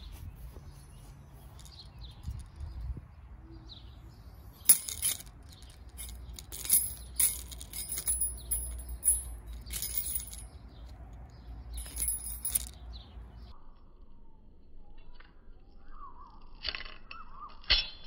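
Metal lure retriever rattling and clinking against a snagged crankbait and its trebles as the line is jerked to tear the lure free, a string of sharp metallic jingles through the middle of the stretch.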